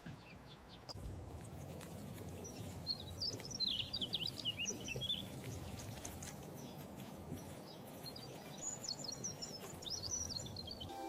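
A bird singing two runs of quick, high chirping notes, one a few seconds in and one near the end, over a steady low background rumble.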